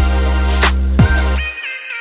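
Electronic background music with a heavy bass and drum hits. The bass drops out near the end, leaving a higher synth line stepping between notes.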